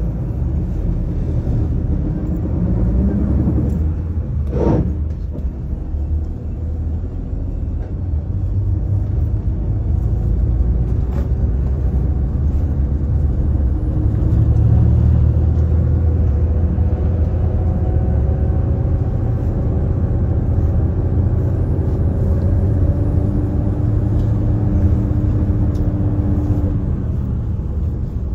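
Daewoo FX116 coach's diesel engine and road rumble heard from inside the cabin while the bus is driving, a steady low rumble. Over the second half the engine pitch climbs slowly as the bus pulls away and gathers speed. A brief sharp sound comes about five seconds in.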